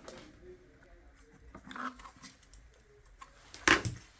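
Handling noise on a workbench: scattered light clicks and rustles, with a louder clatter near the end as things are moved about.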